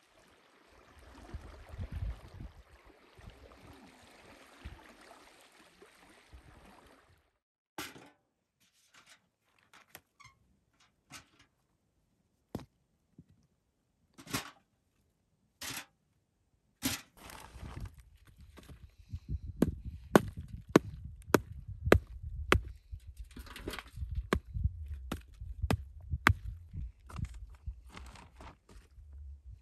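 Small waves lapping on a pebbly lakeshore for the first several seconds. Then dry, crumbly clods are broken and dropped into a metal bucket as a run of sharp knocks and cracks, sparse at first and then dense with heavy thuds in the second half.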